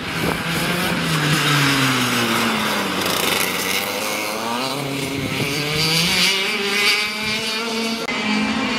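Racing kart engine running on track, its pitch falling and rising several times as the kart slows for the corners and accelerates out of them.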